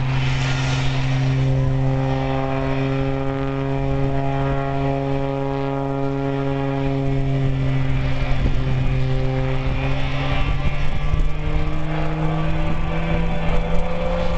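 Aerobatic propeller plane's engine and propeller droning at a steady pitch, which climbs a little and grows louder and rougher over the last few seconds.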